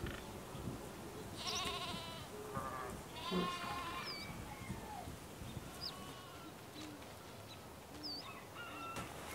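A farm animal bleating, two wavering calls about a second and a half apart, with weaker bleats later. Short high chick peeps come in between.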